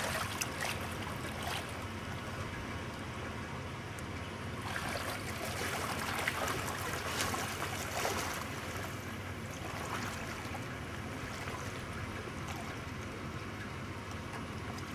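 Water splashing around a person's legs as he wades through shallow lake water, busiest in the middle of the stretch, over steady low background noise.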